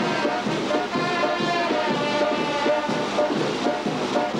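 Brass band music with a steady beat: horns holding long notes over a pulsing lower part.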